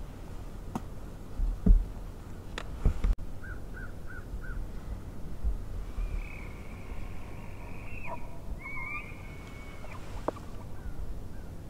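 Bull elk bugling: a long, high whistle about six seconds in that holds for a few seconds, then bends and breaks near the end. Before it come two loud knocks and four quick high chirps.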